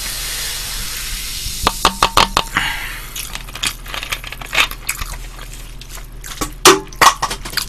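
Cola poured from a plastic Pepsi bottle into a glass mug: a steady fizzing hiss that stops about a second and a half in. Then a series of clicks and crinkles as the plastic bottle is handled, with two sharper knocks near the end.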